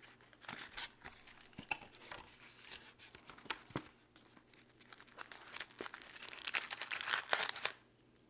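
Foil trading-card packs crinkling and rustling as they are pulled out of a cardboard Donruss football hobby box, with scattered clicks and handling noises. The crinkling is loudest near the end.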